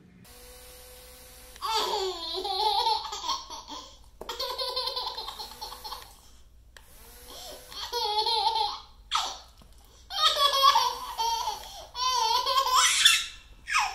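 Baby laughing hard in several bouts of giggles, with short pauses between them.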